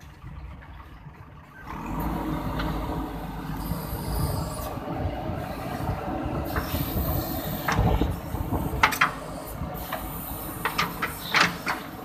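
JCB backhoe loader's diesel engine running, its rumble rising about two seconds in, with several sharp metallic clanks and knocks in the second half.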